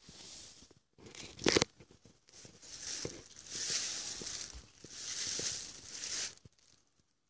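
Rustling, crinkling noise in five drawn-out bursts, mostly high hiss, with one sharp crackle about a second and a half in.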